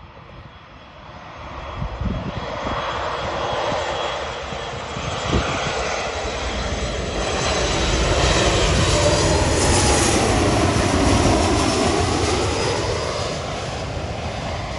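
Boeing 737 MAX 8 jet on final approach passing low overhead, its CFM LEAP-1B turbofans running at approach power. The engine noise builds over several seconds, is loudest around the middle as the aircraft passes, then eases a little. A sweeping whoosh dips and rises in pitch as it goes by.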